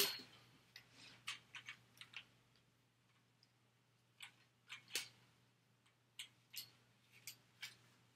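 Metal tripod light stand being handled and unfolded: scattered light clicks and knocks from its legs and sections, the loudest at the very start, over a faint steady low hum.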